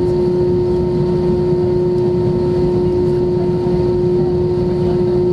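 Steady cabin drone of an Airbus A320-232 with its IAE V2500 engines running, heard from a window seat beside the wing: a low rumble with a strong steady hum-tone above it, holding even with no change in thrust.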